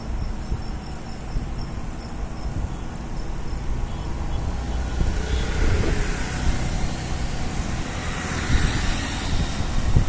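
Low wind rumble on the microphone of a moving bicycle, with road traffic noise. A motor scooter passes the cyclists about halfway through, and passing-vehicle noise swells again near the end.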